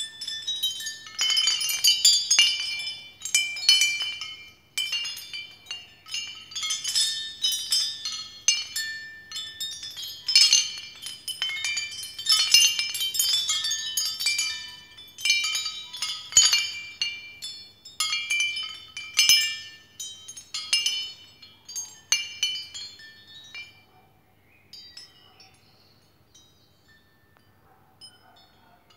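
Ceramic wind chime of painted ceramic clouds and bars, set spinning by hand, its pieces clinking against each other in quick irregular knocks with short high ringing tones. The clinking thins out and fades about 23 seconds in as it slows.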